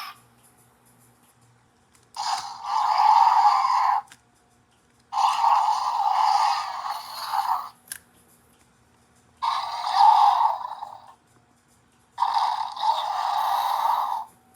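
Recorded roar sound effects from a Jurassic World 'Wild Roar' toy dinosaur, played four times. Each roar is a harsh, thin growl of two to three seconds with no low end, and each cuts off abruptly.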